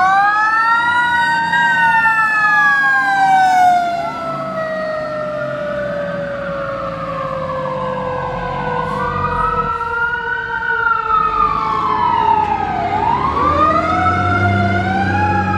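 Fire engine's siren wailing in slow sweeps that rise and fall about three times, with a second lower tone slowly falling underneath. The truck's engine rumble grows louder near the end.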